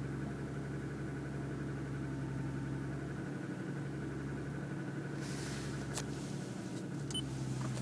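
A 2007 Lexus ES350's 3.5-litre V6 idling cold, heard from inside the cabin with the windows closed, with the pronounced piston slap this engine makes for the first minutes after a cold start. About five seconds in a hiss comes in, and two sharp clicks follow near the end.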